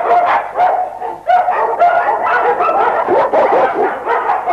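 German shepherd barking repeatedly behind a gate, about three barks a second, with a brief pause about a second in.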